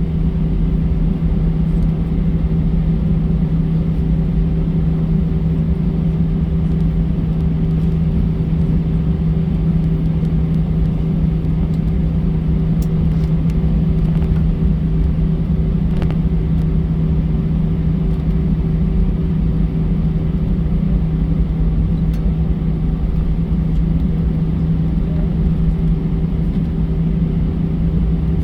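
Steady engine and airflow drone heard inside the cabin of an Airbus A320 airliner: a constant deep rumble with an unchanging low hum and no rise or fall.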